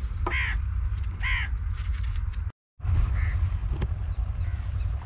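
Crows cawing: two loud caws about a second apart, then, after a brief gap of silence, fainter calls, over a steady low rumble.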